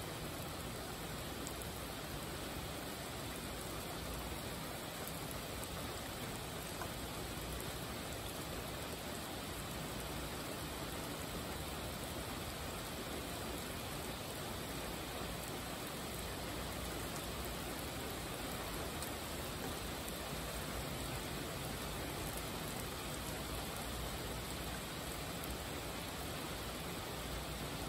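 Steady rainfall: an even hiss of many drops, holding the same level throughout.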